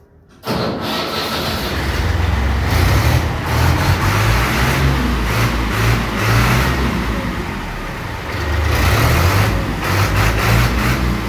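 A diesel tractor engine starts about half a second in and runs loudly with an uneven throb. It gets louder from about nine seconds in.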